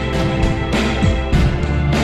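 Background music: held chords over a regular beat.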